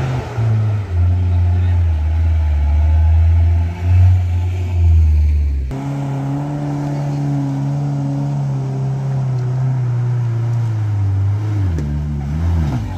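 Engine of a heavily loaded pickup truck labouring up a steep dirt slope, held at a steady low drone under load. About halfway through the sound cuts off abruptly and resumes at a slightly higher, steady pitch, which sags and wavers near the end.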